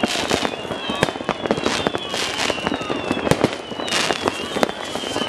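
New Year's fireworks going off close by and all around: a steady run of sharp bangs and crackling bursts at uneven intervals, with high whistles that slowly fall in pitch.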